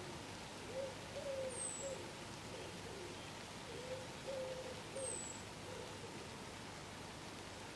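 A bird cooing in two phrases of about three low notes each, the middle note longest, with a thin, very high descending whistle twice over a faint hiss of the outdoors.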